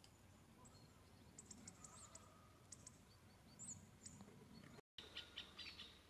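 Faint, high-pitched chirps and short calls of small birds over a quiet outdoor background, the sound cutting out for an instant near the end.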